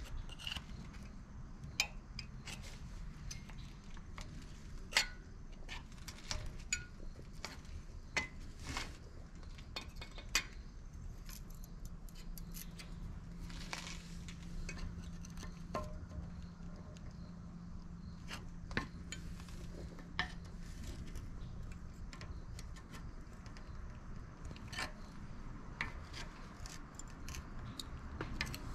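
Scattered metallic clinks and scrapes of a pry bar worked against a brake caliper and its pads, levering to push the caliper pistons back.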